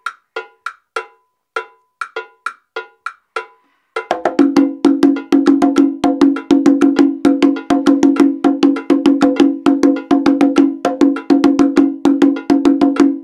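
A sparse recorded percussion backing pattern of short ringing clicks. About four seconds in, Tycoon congas come in over it, played by hand in a quick syncopated figure of mostly open tones.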